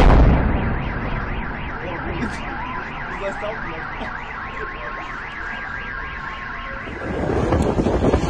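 A sudden loud blast from the burning fuel station, then a car alarm wailing rapidly up and down for several seconds. Near the end, wind buffets the microphone.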